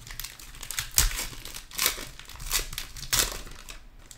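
A foil trading-card pack wrapper being torn open by hand: crinkling, with four sharp rips about a second apart, growing quieter near the end.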